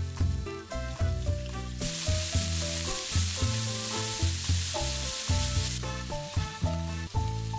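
Beef burger patties sizzling on a hot flat-top griddle, a dense hiss that starts suddenly about two seconds in and stops near six seconds. Background music plays throughout.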